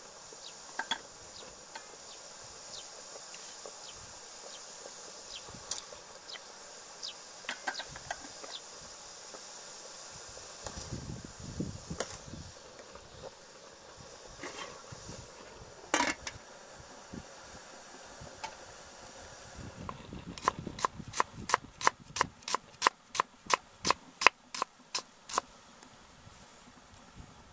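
Cleaver chopping shallots and red chillies on a wooden cutting board: a quick, even run of sharp knocks, about three a second, starting about two-thirds of the way in and lasting some five seconds. Before it there is only a steady high hiss with a few faint clicks and chirps.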